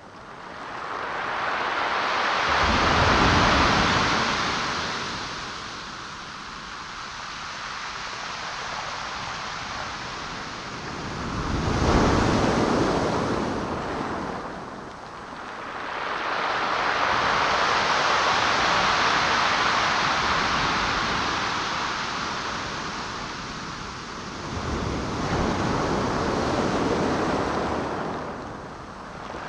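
Pacific Ocean surf breaking and washing up a gravel and pebble beach, swelling and fading in about four slow surges; one wave near the middle breaks with a heavier low rush.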